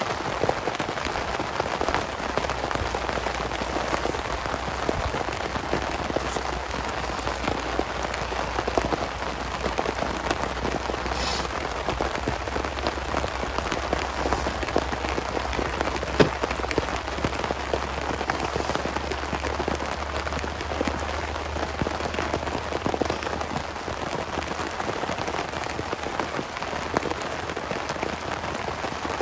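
Heavy rain pattering steadily on a tarp shelter overhead, a dense run of fine drop ticks, with one sharper tap about sixteen seconds in.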